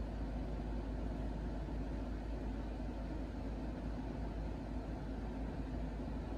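Steady low hum with hiss, unchanging, with no distinct events: constant background machine or room noise.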